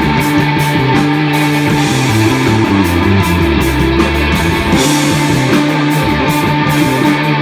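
Live rock band playing an instrumental passage: electric guitar holding sustained notes over a bass line that steps between low notes.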